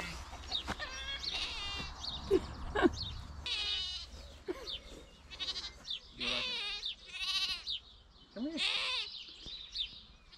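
Lambs bleating several times, high wavering calls about half a second long each, some answering one another.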